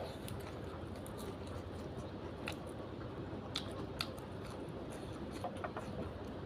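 Someone eating: chewing with a few short, sharp clicks scattered through, over a steady background hiss.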